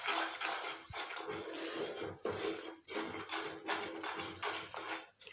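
A spoon stirring and scraping a thick ginger and jaggery paste around a pan in repeated strokes. The paste has cooked down to a nearly setting consistency.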